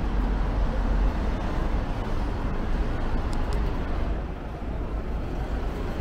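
Road traffic going past: a steady low rumble of motor vehicles with street noise, swelling about a second in and again near the end.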